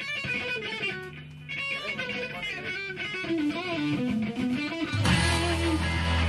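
A clean plucked guitar plays a melodic line of single notes. About five seconds in, the full band comes in loudly, with heavy low bass and a bright wash of cymbals and distortion.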